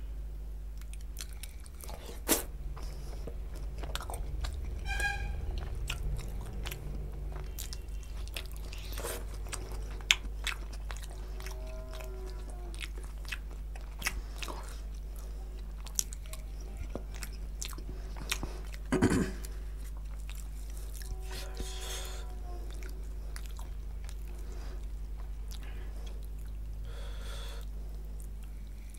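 A person chewing mutton curry and bhature by hand, close to a headset microphone: wet chewing and smacking with frequent small clicks and a few sharper ones. A steady low hum runs underneath.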